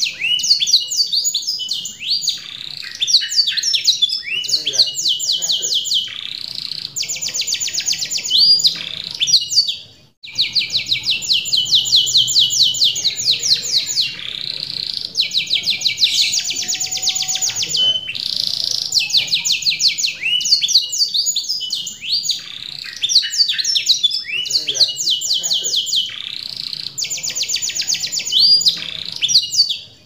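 Domestic canary singing loudly and without pause: fast trills of rapidly repeated notes mixed with sweeping whistled phrases, broken only by a brief gap about ten seconds in.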